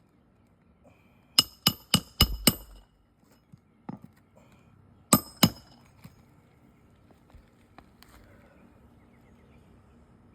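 Hammer driving nails into a roof shingle: five quick ringing strikes about a second and a half in, then two more a few seconds later.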